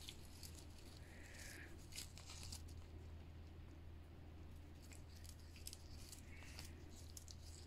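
Near silence with faint, scattered crinkles and rustles of fresh corn husk leaves as two cats nose at them, over a low steady hum.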